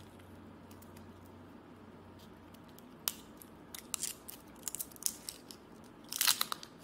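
Small clicks and scratches of a fingernail picking at a roll of washi tape, trying to lift the end. Scattered sharp ticks start about three seconds in, with a louder burst of scratching near the end.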